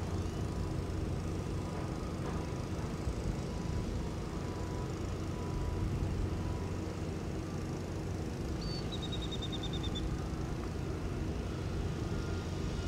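Steady low engine rumble from distant heavy machinery, mixed with wind. A short, rapid run of high chirps, like a bird trill, comes about nine seconds in.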